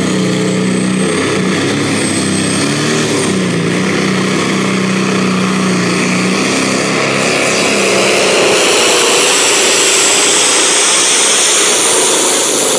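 Pro stock pulling tractor's turbocharged diesel engine running hard under load while pulling the sled. A high turbo whine rises through the second half.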